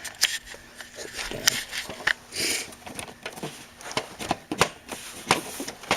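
Irregular sharp clicks and knocks of a desktop PC's plastic front panel being handled and pushed at while it is fitted, with a short scraping hiss about two and a half seconds in.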